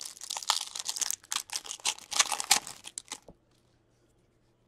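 Foil wrapper of a hockey card pack crinkling and tearing as it is ripped open by hand, a rapid crackle that stops a little after three seconds in.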